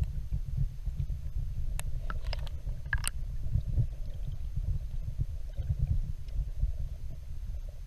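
Muffled underwater rumble picked up through a submerged camera, low and uneven, with a few short clicks between about two and three seconds in.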